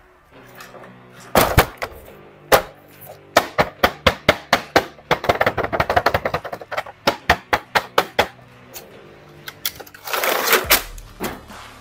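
Plastic action-figure packaging being handled: a run of sharp clicks and knocks as hands tap and move the clear plastic window of a cardboard box, then a short crinkle of the plastic near the end. Faint background music runs underneath.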